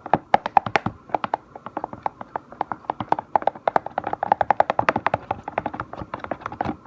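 A stirring stick clacking against the sides of a plastic Tupperware container as it whips through a glue slime mixture: quick, irregular taps, several a second.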